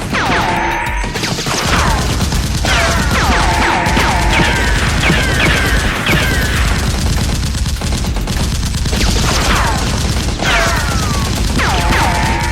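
Sustained rapid machine-gun fire sound effects, with many falling whistling tones laid over the shots in clusters.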